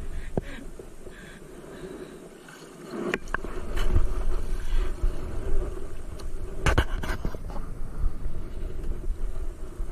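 A few sharp knocks and scrapes against a small outrigger boat's hull as a man climbs aboard onto the bow, over a low wind rumble on the microphone. The knocks come about three, four and seven seconds in.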